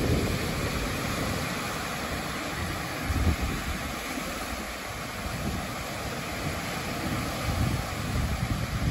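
Small waves washing onto a cobble beach, with breeze buffeting the microphone in low gusts, strongest about three seconds in and near the end.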